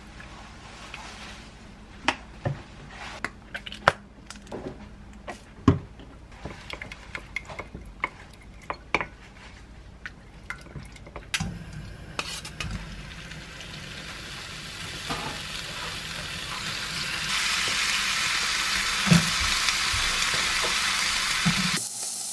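A wooden spoon tapping and scraping against a glass mug while a sauce is stirred. About halfway in, cubes of beef go into a hot oiled frying pan and start sizzling, the sizzle growing steadily louder.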